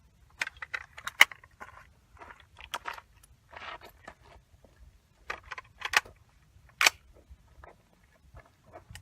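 Irregular clicking, crunching and rattling from close handling noise: a string of short clicks and scrapes, with the sharpest ones about a second in and near seven seconds in.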